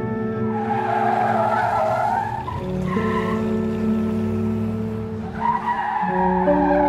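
Tire-squeal and car skid sound effects over background music with sustained chords. The screech comes twice, once early and again near the end.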